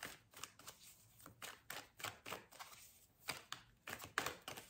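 Tarot cards being shuffled and handled in the hands: a string of faint, irregular card clicks and flicks.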